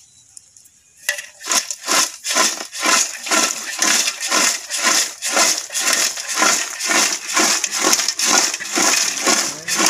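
Crisp fried potato chips rustling and crunching as they are tossed in a large metal pot to coat them with chili powder and salt. The shaking starts about a second in and keeps a steady rhythm of about two to three tosses a second.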